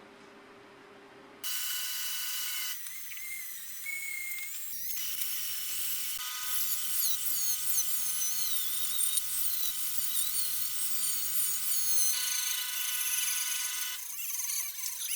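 High-speed electric power tool running with a high-pitched whine, its pitch wavering as it bears on the work. It starts abruptly about a second and a half in, and the sound changes sharply several times.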